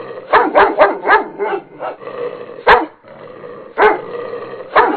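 A dog barking: a quick run of about six barks, then two single sharp barks about a second apart, then another quick run of barks near the end.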